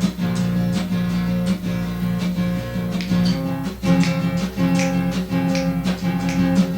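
Acoustic guitar strummed in a steady rhythm, about three strokes a second, moving to a new chord about four seconds in.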